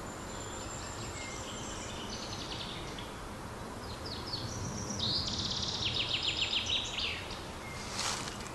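A songbird singing: a softer trilling phrase in the first three seconds, then a louder phrase of fast repeated high notes ending in a downward sweep, over a steady hiss. A short sharp call comes near the end.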